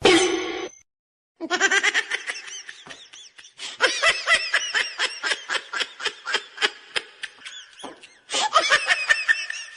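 A person laughing hard: a long run of rapid, high-pitched ha-ha bursts that stops for a moment near the end and then starts again.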